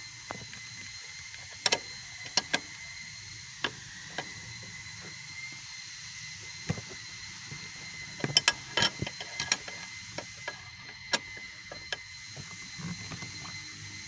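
Irregular sharp metallic clicks and knocks of a bolt, bracket and tool being handled as a car's airbag control unit is fitted, bunched together about two thirds of the way in. Under them is a steady hum with a thin high whine.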